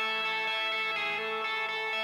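Background music of held guitar chords, with no beat.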